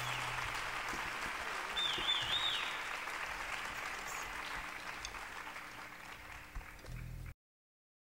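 Audience applauding, with one person whistling a wavering note about two seconds in. The applause slowly fades and then cuts off abruptly near the end.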